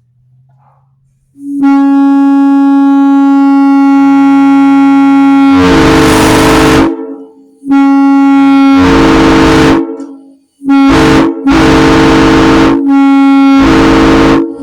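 Airchime M3 three-chime locomotive air horn blown on compressed air for the first time, very loud, in several long blasts. In the first two blasts a single low note sounds alone before the other chimes cut in with a rush of air to form the full chord; the later blasts follow one another with only brief breaks.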